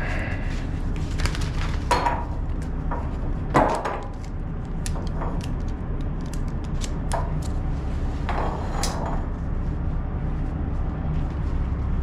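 Scattered clicks, knocks and clatter of cargo straps and gear being handled inside a loaded trailer, with a few louder scrapes, over a steady low rumble.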